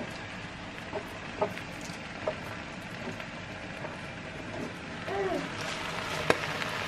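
A few light knocks on a plastic cutting board as sliced greens are gathered up by hand, over a steady hiss of cooking on the stove. The hiss grows louder near the end as the greens are brought to the pot.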